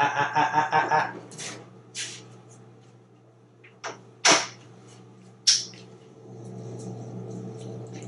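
Sharp clicking and tapping from an African grey parrot: a rapid rattle of clicks lasting about a second, then single sharp clicks spread over the next few seconds.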